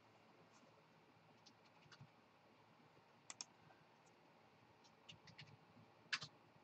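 Faint, scattered clicks of a computer mouse and keyboard over near silence, about a dozen in all, with a quick pair a little past three seconds, a cluster around five seconds and the loudest click near six seconds.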